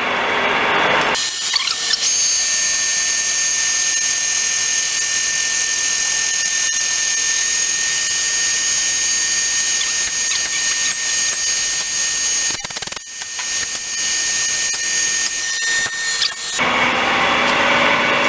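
Lathe cutting tool squealing against a spinning bronze test sample during a finishing cut, a high-pitched squeal with two steady whistling tones. It starts about a second in, falters briefly around thirteen seconds and stops a couple of seconds before the end, leaving the lathe running.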